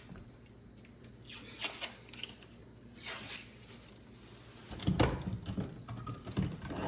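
Kitchen handling noises: scattered scrapes and rustles, then a run of knocks and clatter from about five seconds in.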